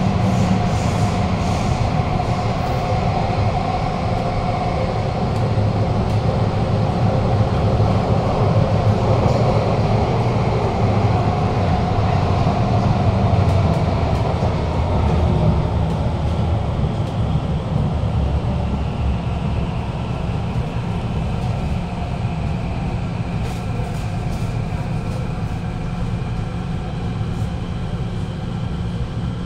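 Kawasaki–CRRC Qingdao Sifang CT251 metro train heard from inside the carriage: traction motors whining over the steady rumble of wheels on rail. The motor tone falls slowly and the noise eases as the train slows into a station, with a higher tone coming in near the end.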